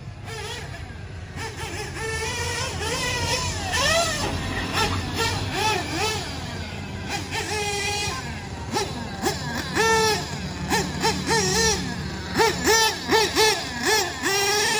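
Sworkz S350T nitro truggy's small nitro engine revving up and down as the truck drives, its high pitch rising and falling with the throttle. From about ten seconds in it gives a quick series of short throttle blips.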